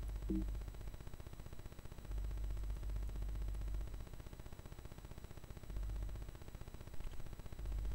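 Room tone: a low hum that comes and goes under a steady faint hiss, with no distinct events.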